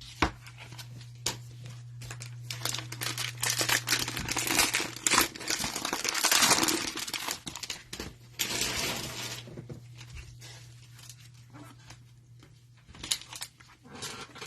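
Plastic wrapping of a trading-card hanger pack being torn open and crinkled, a dense crackle that is busiest from about four to nine seconds in, over a steady low electrical hum.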